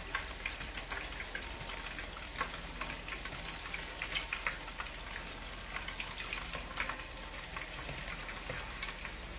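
Hot oil sizzling and crackling with frequent small pops as bacon-wrapped, boudin-stuffed biscuits fry in a pan.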